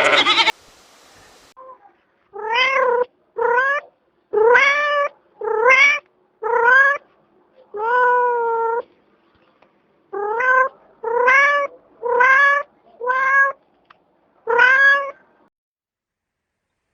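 Domestic cat meowing repeatedly: about eleven meows, each rising in pitch, roughly a second apart, with one longer, drawn-out meow near the middle.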